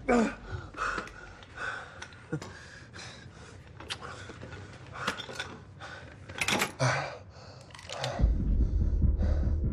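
A man's short grunt at the start, then scattered small clicks and clinks of a carbon-fibre prosthetic leg being handled. A low rumble sets in about eight seconds in.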